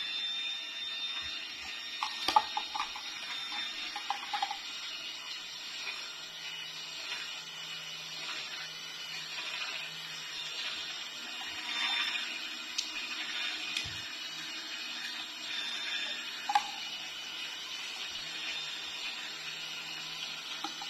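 Vertical slow juicer: a few sharp plastic clicks as its parts are fitted together in the first few seconds, then the motor running with a low steady hum as fruit is pushed down the feed chute, with one more click later on.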